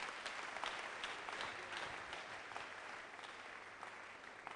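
Congregation applauding: many hands clapping together, fairly faint, dying away near the end.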